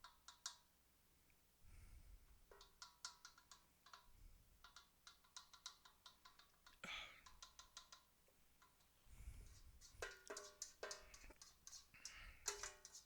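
Faint, irregular clinks and taps of a utensil against cookware, each with a short ring, as pasta is moved around in the dish. The taps come more often near the end.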